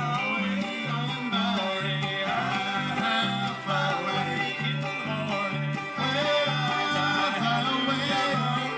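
Bluegrass band playing live, banjo and guitar to the fore over a bass line that alternates between two low notes.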